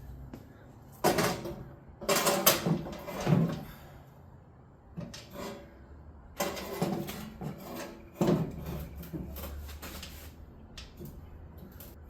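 Several knocks and scraping clatters of metal parts and tools being handled on a workbench, in bursts up to about a second and a half long with quieter gaps between.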